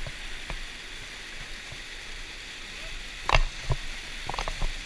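Waterfall rushing in a steady hiss. A few short, sharp knocks or splashes come near the end, the loudest a little after three seconds in.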